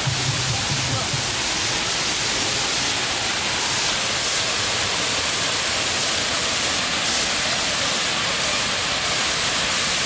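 Water rushing down a small multi-tiered waterfall over rock ledges: a steady, unbroken hiss.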